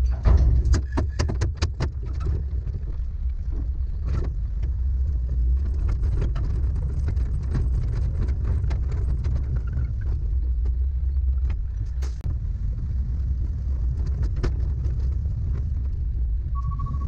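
Empty dump truck driving, a steady low rumble of the running truck, with a quick run of knocks and rattles in the first two seconds and a few single knocks later.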